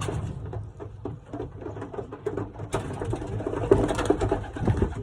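Pigeons cooing, with scattered sharp clicks and rustles.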